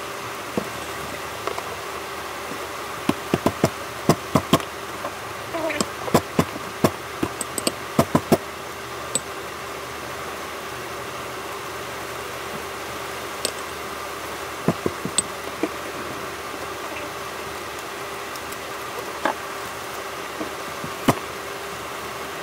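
Sharp metallic knocks and clicks of a metal pestle and garlic being handled against a stainless-steel bowl while garlic is peeled and crushed for a dipping sauce. There is a quick run of knocks a few seconds in, then a few scattered single ones, over a steady background hum.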